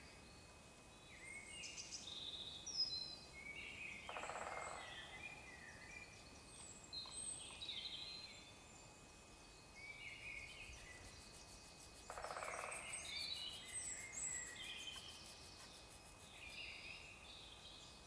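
Woodpecker drumming, two short rapid rolls about eight seconds apart, over songbirds singing and chirping.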